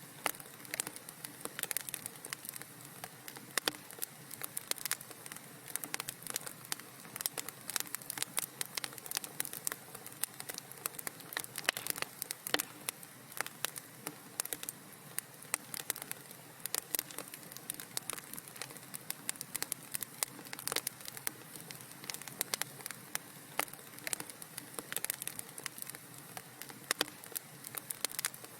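Wood fire in a fireplace crackling: a steady soft hiss with dense, irregular sharp pops and snaps.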